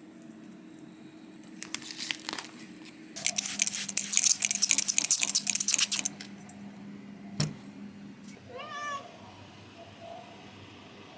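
Loud crackly rustling for about three seconds, a single sharp click, then a pet cat meows once, briefly.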